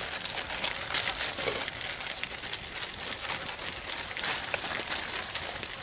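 Crackling and sizzling from a campfire cook-fire with salt pork frying in a skillet: a steady hiss scattered with many small pops.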